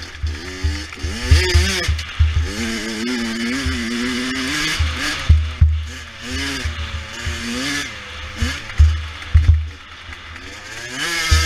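A 100cc two-stroke dirt bike engine revving up and falling off again and again as it is ridden hard, with irregular deep thumps underneath.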